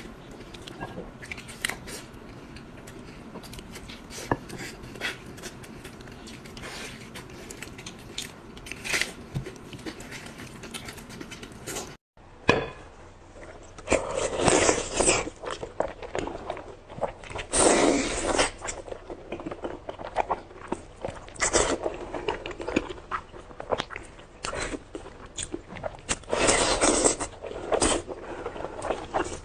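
A person eating close to the microphone: biting and chewing, with small quiet clicks at first, then, after a brief break about twelve seconds in, louder bites that come irregularly every few seconds.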